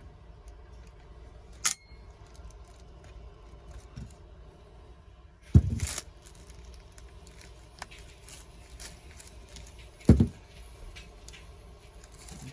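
Handling noises as the impact wrench and its parts are worked on a bench: three sharp knocks, about two seconds in, halfway and near the end, with small clicks and rattles between them.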